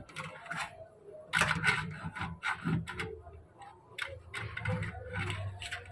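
A thin metal wire scraping and clicking in the gap of a metal window frame as it is poked in and worked around to reach the latch: a run of irregular clicks and scrapes.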